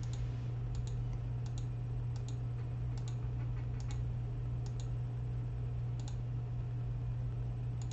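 Computer mouse clicking: short sharp clicks, mostly in quick pairs, every second or so, over a steady low hum.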